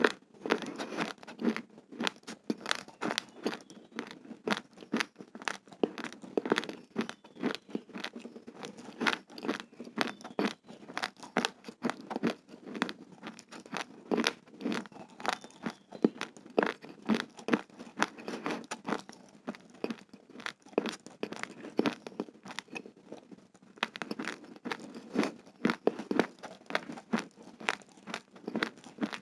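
Close-miked chewing of raw, uncooked rice grains: a dense run of sharp crunching cracks as the hard grains break between the teeth, thinning briefly about two-thirds of the way through.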